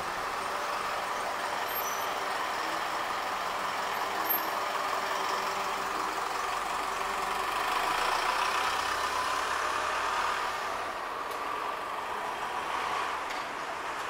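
Street traffic noise, with a vehicle passing close by and growing louder about eight seconds in.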